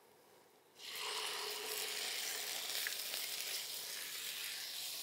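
Raw lotey (Bombay duck) fish tipped all at once into hot oil and frying onions in a wok: a sizzle starts suddenly about a second in and goes on steadily, easing a little near the end.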